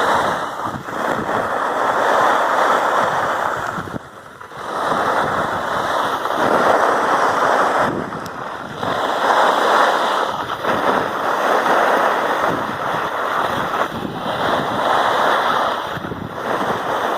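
Skis sliding and scraping over snow on a downhill run, mixed with wind rushing over the microphone: a loud hiss that swells and fades every few seconds, dipping briefly about four seconds in.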